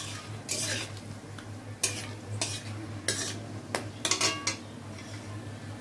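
Metal spatula scraping and clinking against a metal kadai in a run of strokes, stirring whole spices (cinnamon, cardamom, cloves, peppercorns) that sizzle softly in oil and ghee as they temper.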